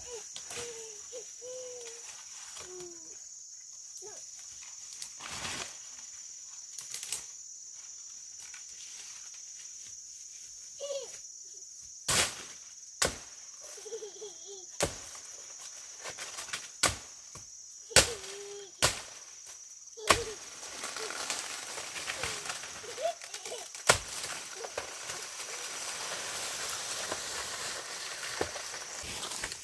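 A machete or knife chopping into a banana plant's trunk: a series of sharp, irregular chops, about eight over a dozen seconds, followed by rustling foliage as the plant tips over. A steady high insect drone runs underneath.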